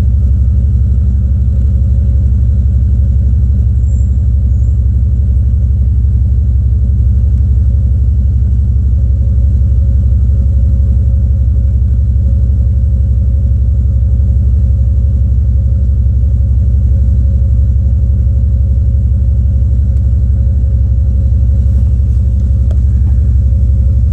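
Jeep Grand Cherokee 5.9's electric radiator fan running on high speed, switched on by hand through a newly added relay and toggle switch, over the idling engine. It makes a loud, steady low rumble as it pulls the coolant temperature down.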